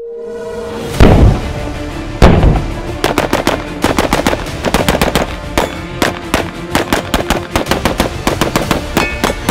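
Rapid strings of shots from an AR-15 pistol, many sharp cracks a second from about three seconds in, laid over background music. Two loud booming hits come about one and two seconds in.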